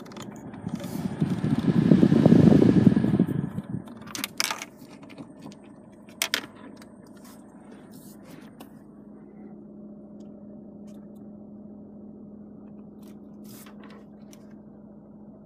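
Rubbing and handling noise on the phone's microphone swelling loud for a few seconds, then a few sharp clicks and a steady low hum inside a car cabin.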